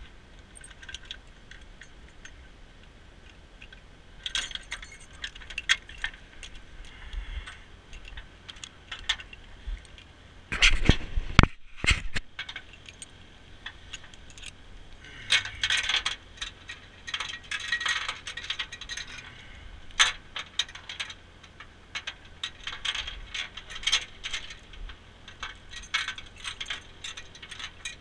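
Metal clinking and rattling of a tow truck's wheel-lift hardware, chains and straps being handled as a towed car is unhooked, with a burst of louder clanks about eleven seconds in.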